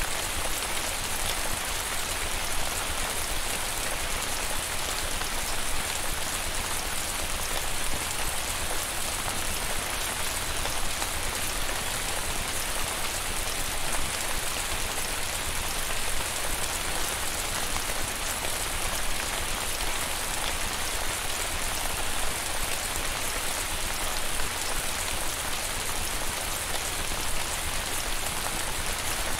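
Steady rain falling: an even hiss with no single drops or other sounds standing out.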